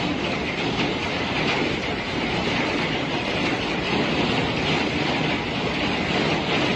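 Strong storm wind buffeting the microphone: a loud, steady rushing roar with ragged low rumbling.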